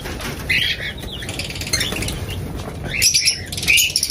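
Small caged birds in an aviary, such as lovebirds and cockatiels, chirping and squawking in short bursts, with some wing flapping.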